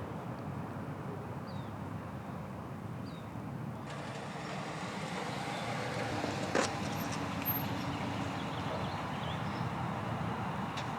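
Steady background noise of road traffic, with a couple of short bird chirps in the first few seconds and a sharp click about six and a half seconds in.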